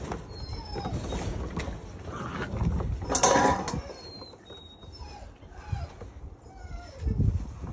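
Puppies' paws pattering and scuffling on a wooden deck as they play, with a metal water bowl clattering loudly about three seconds in.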